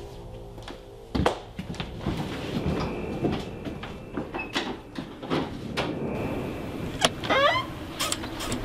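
Footsteps and a front door being opened. A thump about a second in is followed by a string of knocks and clicks, then a brief squeak about seven seconds in as the door swings open.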